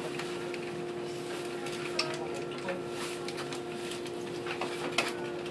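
Inside a passenger train car: a steady hum of onboard equipment with light rattles and ticks, and two sharper clicks, one about two seconds in and one near the end.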